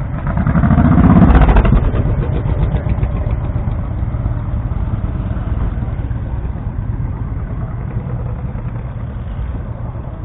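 Another motorcycle passes close by, loudest about a second in. Then a small motorcycle engine, the 1970 Honda CB175's air-cooled parallel twin, runs steadily at low speed.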